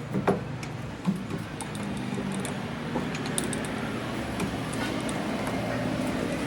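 A machine running with a steady low hum, with a few sharp clicks or knocks near the start, about a second in and about three seconds in.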